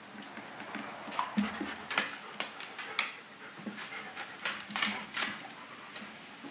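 A dog panting, with short irregular clicks and scuffs.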